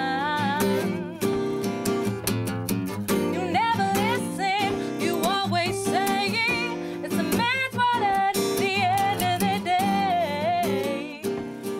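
A song with acoustic guitar and a solo singer whose voice has a wide vibrato; it ends about eleven seconds in.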